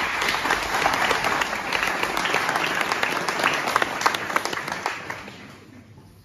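Audience applauding, many hands clapping together, thinning out and fading away near the end.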